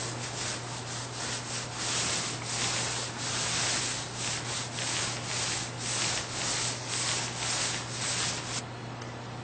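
Small paint roller rolled back and forth over wallboard, a rubbing hiss with each stroke, roughly two strokes a second; the strokes stop near the end, leaving a steady low hum.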